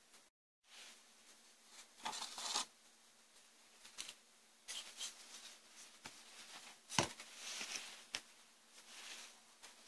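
Faint handling noises from a treadmill inverter unit being taken apart: scattered light clicks and short rustling scrapes of its metal case and parts, with one sharper knock about seven seconds in, over a faint steady hum.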